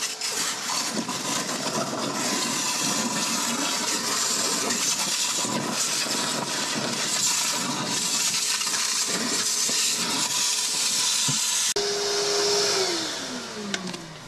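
Wet vacuum sucking a shallow layer of bilge water out of a boat's bilge, the motor running steadily with a faint whine as water and air are drawn up the hose. About twelve seconds in it is switched off and the motor winds down with a falling whine.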